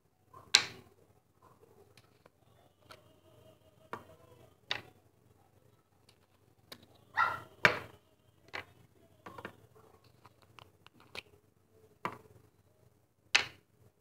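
Plastic screw caps being twisted off small paint jars and set down on a table: scattered sharp clicks and knocks a second or more apart, with a louder cluster about halfway through.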